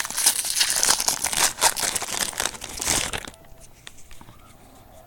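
A trading-card pack wrapper crinkling and tearing as the pack is opened by hand, a dense crackle that stops about three seconds in, leaving a few faint ticks of cards being handled.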